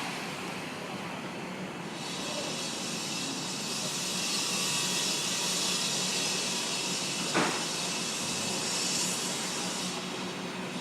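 City street traffic noise with a loud steady hiss from about two seconds in until near the end, and one sharp knock about seven seconds in.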